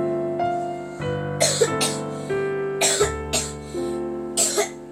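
Soft piano background music, with a child who has a cough and cold coughing in a few short bouts over it.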